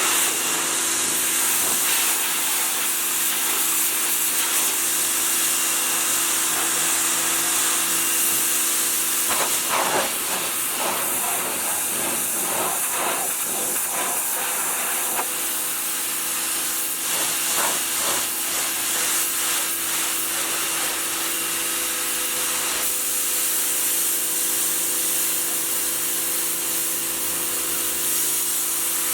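Harbor Freight Portland electric pressure washer spraying a steady high-pressure jet of water onto a car's painted panels, a loud continuous hiss over the pump motor's steady hum. The spray sound shifts for a few seconds around a third of the way in and again a little later as the jet moves across the surface.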